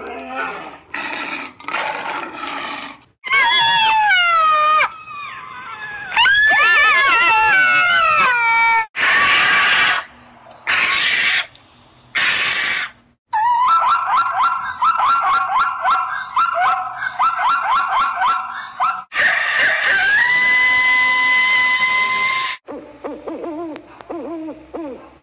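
A series of different African savanna animal calls, one after another with short breaks between them: gliding, wavering calls, a few seconds of fast repeated chattering calls, and a long call that rises and then holds one pitch.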